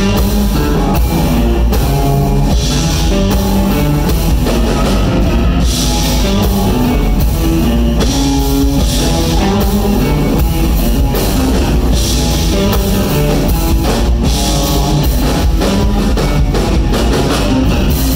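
Live band playing an instrumental funk-rock tune: two electric guitars over a drum kit, loud and steady throughout.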